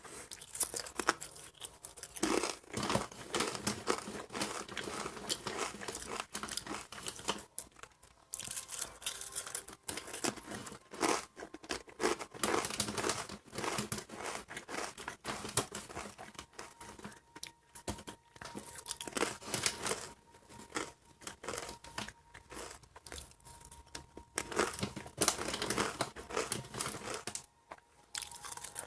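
A bag of ranch Fritos crinkling as it is handled, with corn chips being crunched, in irregular crackly bursts.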